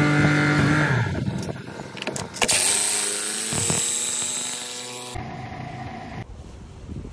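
Cordless impact driver running in two bursts as it drives fasteners into wood, the second burst cutting off sharply about five seconds in.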